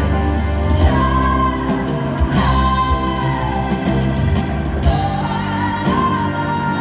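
Two female vocalists singing live with a rock band in an arena, in long held high notes that slide in pitch over the band, heard from far back in the seats.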